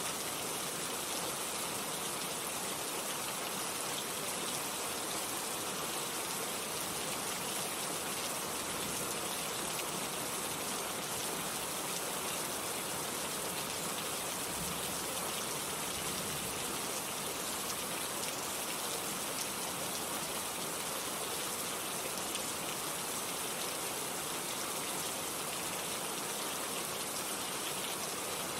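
Steady heavy rain falling and pattering on surfaces, a dense even hiss of many drops with no let-up.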